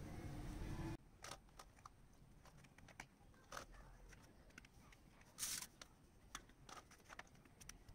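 Faint scattered clicks and soft rustles of sticky candied papaya cubes dropping onto tissue paper over a steel plate and being pushed about with a steel spoon, with one brief louder scrape about five and a half seconds in. A low steady hum in the first second cuts off suddenly.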